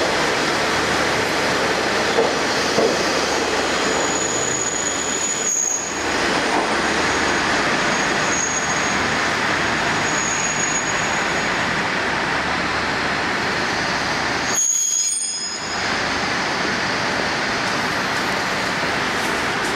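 KiHa 40-series diesel railcars running slowly at the platform: a steady diesel engine and rail rumble, with a few brief high-pitched brake or wheel squeals.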